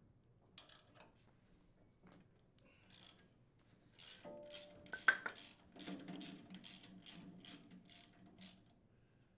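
Socket ratchet turning an impeller removal tool that presses against the engine shaft to push off a chipper shredder's impeller. It gives faint metallic clicks, a few at first, then from about four seconds in an even run of clicks about three a second, over a faint metallic ring.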